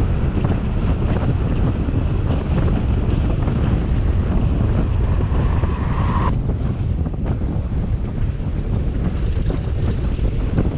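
Wind buffeting the microphone as a loud, steady low rumble, with an abrupt change in the sound about six seconds in.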